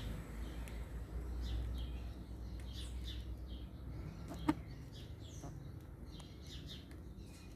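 Small birds chirping in quick, short calls over a steady low rumble, with a single sharp click a little past halfway.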